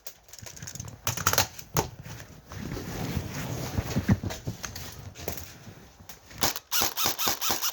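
Rustling and scuffing of movement, then a fast run of sharp clicks or snaps over the last second or so.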